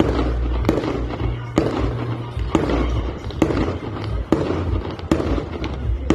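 Fireworks display: shells going off with sharp bangs about once a second, over music playing underneath.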